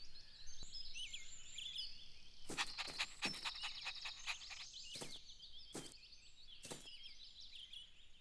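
Many small birds chirping and twittering at a low level, with several short, sharp clicks scattered between about two and a half and seven seconds in.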